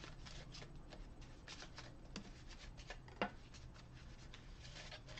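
Small paper message cards being handled and laid down on a table: faint rustling and light taps, with one sharper tap a little past three seconds in.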